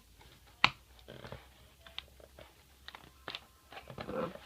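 A cardboard product box being handled: scattered taps, scrapes and light knocks, with one sharp knock under a second in.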